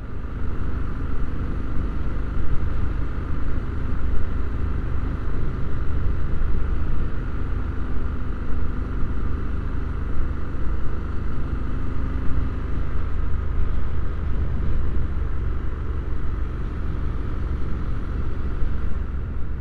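Triumph Scrambler 1200 XE's parallel-twin engine running steadily while the motorcycle rides along the road, heard under a heavy steady rumble of wind noise.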